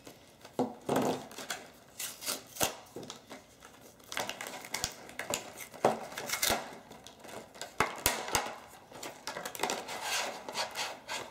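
Stiff clear plastic blister packaging being cut with a pocket knife's small scissors and pried apart by hand: irregular snips, crackles and sharp clicks of hard plastic, with rustling between.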